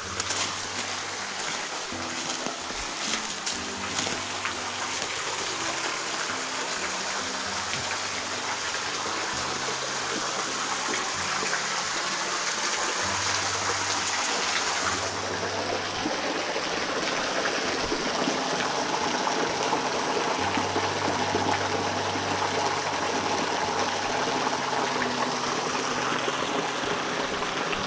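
A stream of running water, a steady rushing and trickling that changes slightly in tone about halfway through.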